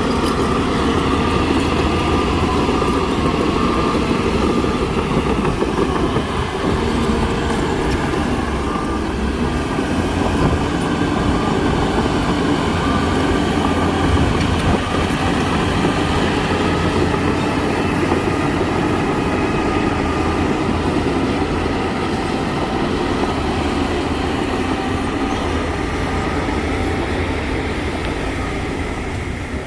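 Heavy diesel earthmoving machinery running steadily under load, with a dense continuous clatter over a deep engine drone.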